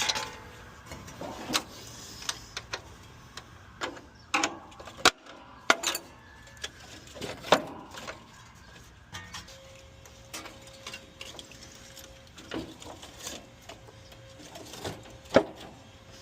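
Irregular clicks and knocks of screws, hand tools and sheet-metal parts being handled while a condenser fan motor bracket is fastened, with a sharp knock about halfway through and another near the end. A faint steady tone runs under the later part.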